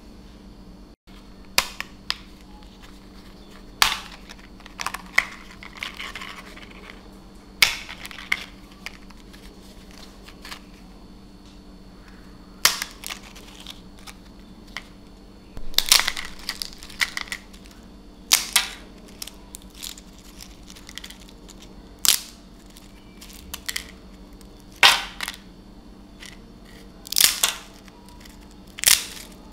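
Thin, crisp-fried potato crepes snapped and crumbled by hand into brittle shards: a dozen or so sharp crackling breaks, coming irregularly, some in quick clusters.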